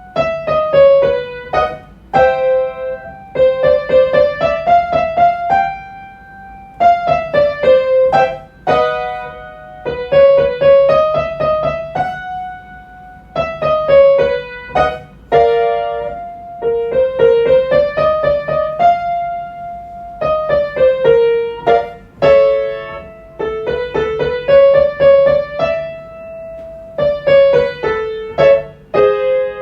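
Piano playing a five-note scale up and back down, repeated again and again, each time starting a step higher, with a chord struck between repeats: the accompaniment for a vocal warm-up exercise.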